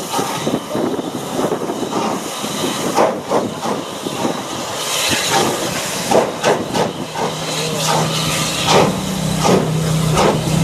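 Steam tank locomotive, Southern Railway M7 No. 30053, hissing steam and chuffing in a run of sharp exhaust beats as it pulls its coaches away from the station. A steady low hum joins about seven seconds in.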